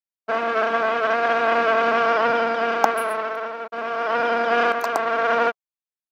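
Buzzing fly sound effect: a steady, even buzz that drops out for an instant a little past halfway, then cuts off suddenly about five and a half seconds in.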